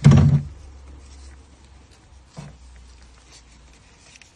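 A short, loud handling knock, then faint scraping and rubbing as a flexible oil-extraction pipe is fed down a car's dipstick tube. A small knock comes about two and a half seconds in.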